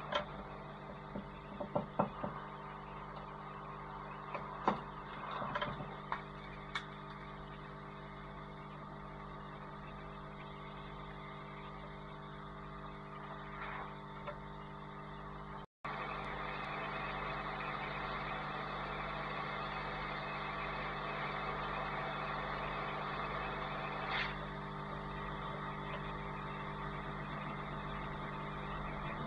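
Light plastic clicks and taps as a plastic opening tool is worked around a phone's cracked touch screen, clustered in the first several seconds. Under them runs a steady electrical hum, which steps up slightly about halfway.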